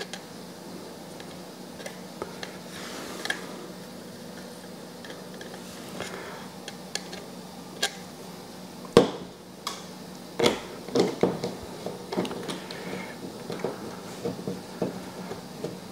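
Light clicks and taps of hard 3D-printed plastic model parts and a glue bottle being handled, with one sharper knock about nine seconds in and a run of small clicks over the last few seconds, over a faint steady hum.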